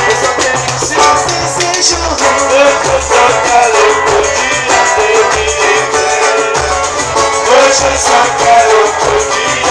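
Live samba band: a cavaquinho strummed and a pandeiro struck in a quick, steady rhythm, with a man singing into a microphone, all loud through the PA, with a low beat pulsing underneath.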